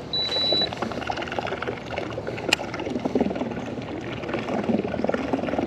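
Water gurgling and splashing around a small fishing boat while a baitcasting reel is cranked to retrieve a lure, with a sharp click about two and a half seconds in.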